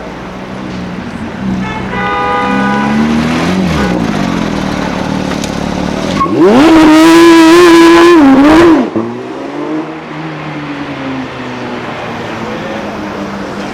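A high-performance car engine revved hard: its pitch climbs quickly, holds at high revs for about two seconds, then drops off suddenly when the throttle is released. Engines of passing street traffic run underneath.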